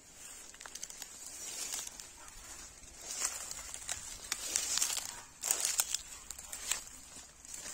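Footsteps through grass and dry sugarcane leaves, a crackling rustle that comes in several louder bursts from about three seconds in.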